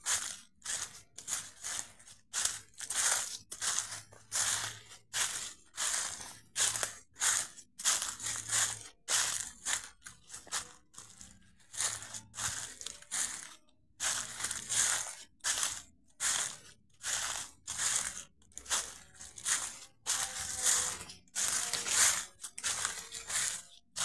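Footsteps crunching through dry fallen leaves at a steady walking pace, a little under two steps a second.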